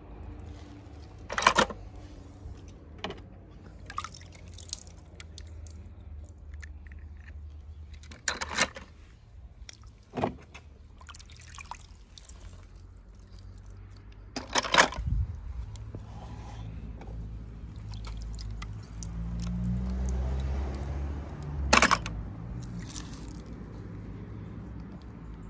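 Die-cast toy cars handled on rocks: a scattering of sharp clicks and clacks, about seven of them, over a steady low rumble that grows louder for a couple of seconds near the end.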